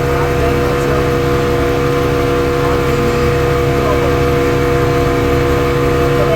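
Boat motor running steadily at a constant speed, a loud even drone with a fixed whine over a low rumble.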